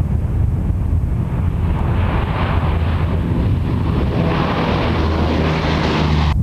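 EC-130H Compass Call's four Allison T56 turboprop engines at takeoff power as it lifts off and climbs past: a steady low propeller drone, with a rushing engine noise that swells louder from about two seconds in. The sound cuts off suddenly at the end.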